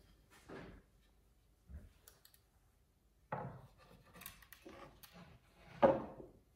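Hands handling a round wooden board and taking hold of a soft brioche bun on a wooden serving board: scattered light rubs, small clicks and soft wooden knocks, the loudest just before the end.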